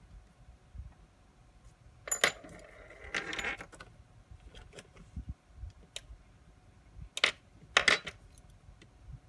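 Small metal watch parts and tools clinking and tapping on a work surface during the disassembly of a TITONI automatic watch. There is a short jingle of metal about two seconds in and another around three seconds, then a sharp click and a clink near the end.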